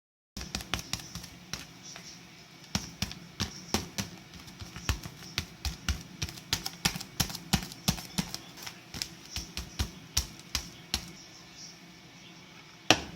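A quick, irregular run of sharp taps and clicks, a few each second, as of hard objects knocking together, with one louder knock near the end.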